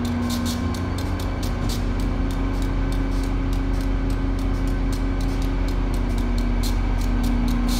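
A steady mechanical hum with a constant low tone over a rumble, with a run of quick, irregular clicks throughout.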